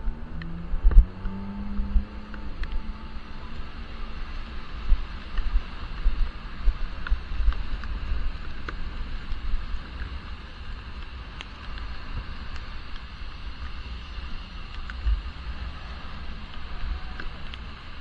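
Wind buffeting a helmet-mounted action camera sealed in its waterproof case, heard as a muffled, gusty low rumble, over a steady hiss of bicycle tyres on wet road in the rain. A low engine hum of a passing vehicle fades out over the first few seconds.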